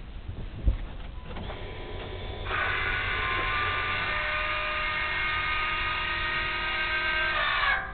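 Small electric motor whining steadily, typical of a QTP electric exhaust cutout actuator driving its valve. It starts about a second and a half in, grows louder about a second later and cuts off just before the end.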